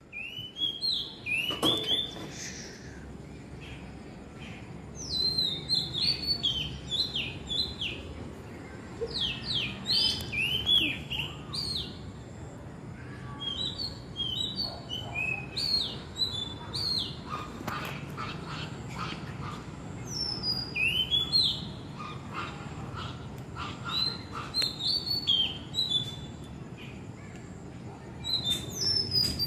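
Oriental magpie-robin singing: phrases of varied whistled notes, many sliding up or down in pitch, with short pauses between phrases.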